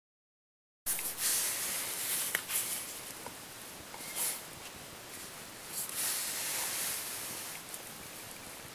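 Steady hiss with irregular rustling and light handling noise, as of hands moving paperback books. It starts abruptly about a second in.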